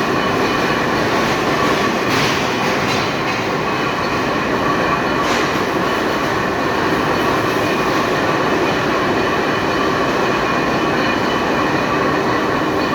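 Heavy lathe turning a steel rolling-mill roll: steady machining noise with a high metallic ringing from the cut. Two brief louder rasps come about two and five seconds in.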